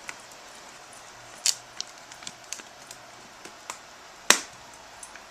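An Australian Shepherd chewing a wooden stick: sharp cracks and snaps of wood splintering under its teeth, with two louder cracks about a second and a half in and just past four seconds, and lighter clicks between.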